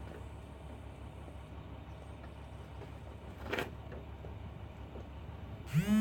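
A low steady hum with a single sharp click about three and a half seconds in. Near the end, a loud steady whine with a strong pitch starts, sliding up briefly at its onset and then holding level.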